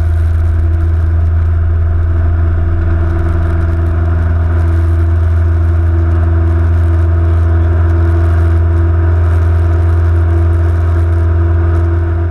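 Cessna 172N's four-cylinder Lycoming engine and propeller at full takeoff power, a loud steady drone heard from inside the cabin during the takeoff roll.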